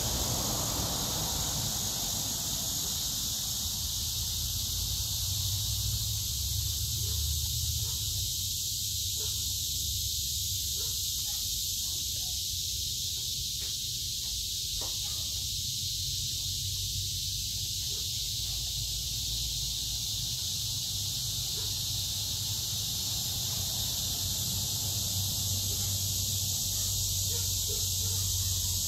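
Steady high-pitched chorus of insects in a backyard, over a low steady rumble, with a few faint clicks from the dogs eating off their plates about halfway through.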